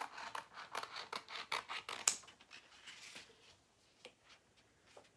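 Scissors snipping through a silkscreen transfer sheet, a quick run of short cuts along its cut line, with the sharpest snip about two seconds in; after about three seconds the cuts come fewer and fainter.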